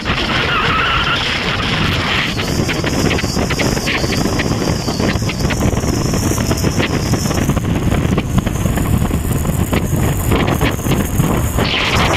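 Steady rush of wind on the microphone with the engine and road noise of a vehicle travelling at speed on an open road.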